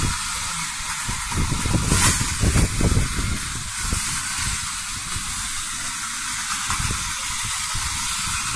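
Battery-powered toy bullet train running along a plastic looping track: a steady hissing rattle with a low rumble, a little louder about two to three seconds in.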